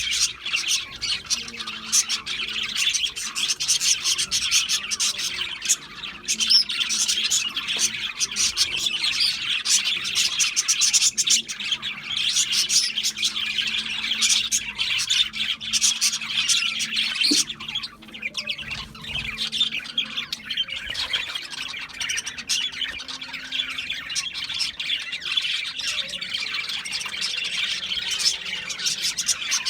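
Several budgerigars chattering and warbling together, a dense, unbroken stream of rapid chirps and squawks.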